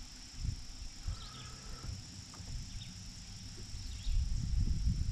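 Steady outdoor chorus of insects, with a low rumble on the microphone that grows louder about four seconds in.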